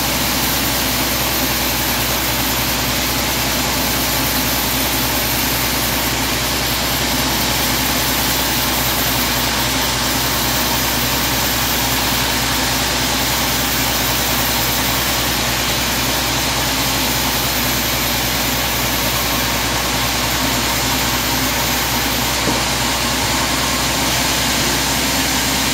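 Vertical band sawmill running steadily while its band blade saws lengthwise through a teak log fed on the carriage: a constant machine hum with a hiss from the cut.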